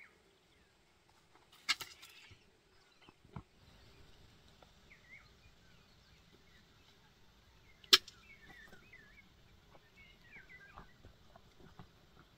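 Two sharp clicks about six seconds apart, with a softer knock between, as ripe tomatoes are picked and set into a metal bucket. Birds chirp briefly through the middle and later part over a faint steady high hiss.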